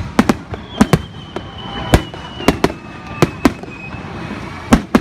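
Fireworks going off: an irregular run of sharp bangs, about three a second, with a faint falling whistle in the first couple of seconds.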